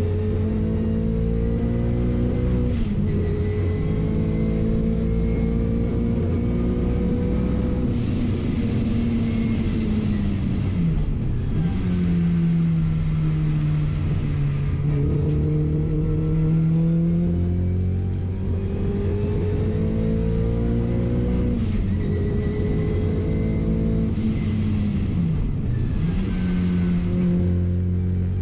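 Car engine under hard acceleration, heard onboard. Its note climbs steadily and drops sharply at each gear change, several times over, with one slower fall near the middle as the car slows and then picks up again.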